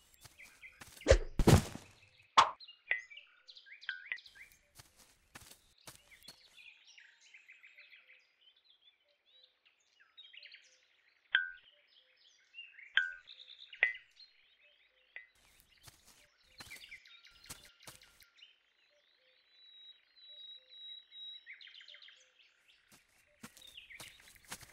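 Songbirds chirping and twittering, with a few louder falling chirps and one held whistle. A loud thump about a second in, followed by a sharp knock, is the loudest sound.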